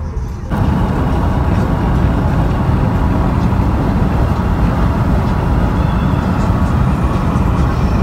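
Steady road and wind noise of a car travelling at speed, heard from inside the car. It cuts in abruptly about half a second in, replacing quieter sound.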